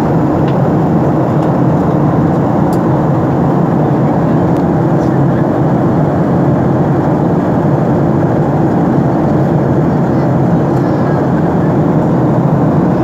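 Steady, loud cabin noise inside a jet airliner in flight: the even rush of its turbofan engines and the airflow past the fuselage, unchanging throughout.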